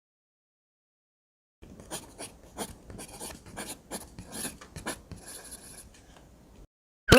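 Dry scratching and crackling made of many short scrapes and clicks, starting suddenly after a second and a half of silence and stopping about a second before the end.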